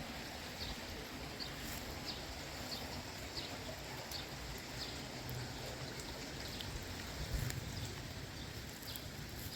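Outdoor background: a steady low hiss with faint, short high ticks every half second or so.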